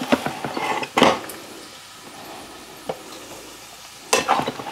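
Dishes and a serving spoon knocking as cooked rice is scooped into a bowl: a few clinks at the start, a sharp knock about a second in, then a burst of clatter near the end.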